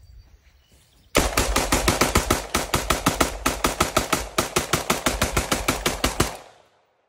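FN M249S semi-automatic belt-fed rifle in 5.56 mm fired in a long, rapid string of shots, starting about a second in and stopping about six seconds in.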